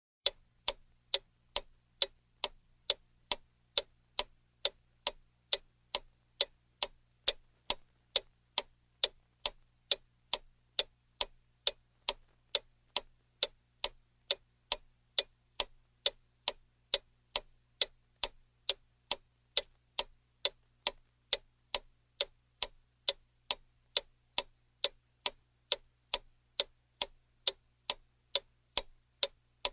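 Clock ticking steadily, about two crisp ticks a second.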